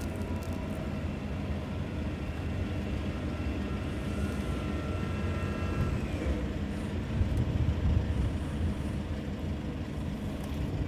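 Steady low engine and road rumble of a moving vehicle, heard from inside. A faint high whine runs through the first half and drops away about six seconds in.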